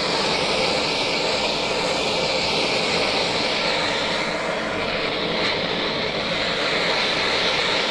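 Handheld gas-cartridge blowtorch burning with a steady, loud hiss of flame while it shrinks heat-shrink tubing onto a crimped cable lug.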